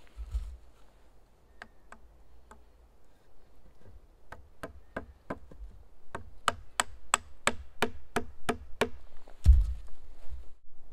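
Carved wooden mallet driving a wooden peg into a joint between two birch poles: a few light taps, then a run of about a dozen sharp wooden knocks, about three a second, getting louder. A dull thump follows near the end.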